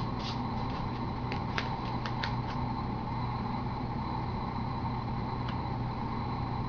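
Steady background hum with a few faint light ticks of handling between about one and a half and two and a half seconds in.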